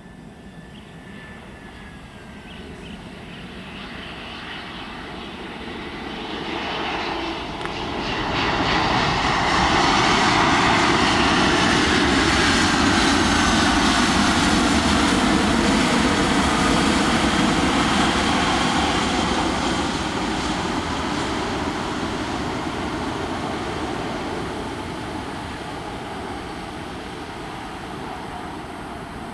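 AirAsia Airbus A320-family airliner's jet engines passing on the landing rollout. The noise swells to its loudest about 9 s in, with a whine that falls in pitch, then slowly fades as the jet moves away down the runway.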